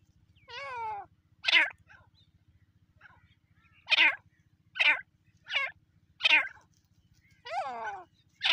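Francolin (teetar) calling: a series of short, harsh calls spaced about half a second to a second apart, some sliding down in pitch, the longest one near the end.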